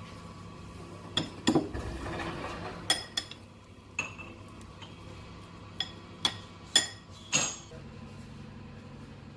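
Cutlery clinking against a dish, about nine sharp, ringing clinks at uneven intervals.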